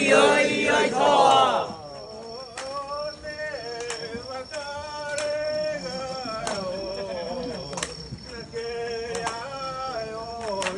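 Men chanting together in a shrine festival procession: a loud group shout in the first two seconds, then a drawn-out, melodic chant with long sliding notes. Sharp clicks come every second or two, over a steady high-pitched tone.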